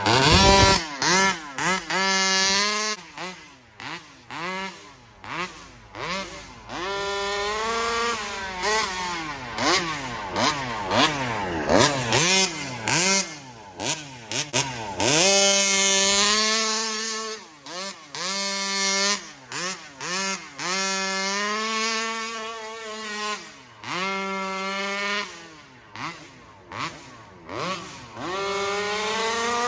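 36cc dual-ring two-stroke gas engine of a Rovan RC car being driven hard, revving up and dropping off again and again, its pitch rising and falling with each throttle burst. The carburettor is tuned to run rich.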